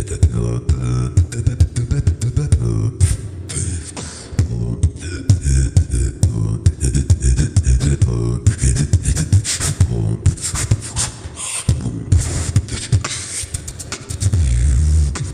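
Solo beatboxing into a handheld microphone: a fast, dense rhythm of mouth-made drum sounds, with heavy low kicks and sharp clicks, and a louder held low bass near the end.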